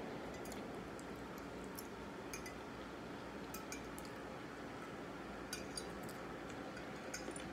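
Metal fork clinking and scraping against a plate while food is gathered onto it: a scattering of short, sharp clicks over a steady low hum.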